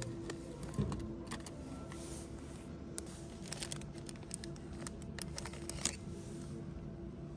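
Small plastic-packaged pen refills crinkling and clicking as they are flipped through and pulled from acrylic display bins, many light clicks at uneven intervals, over a steady faint hum.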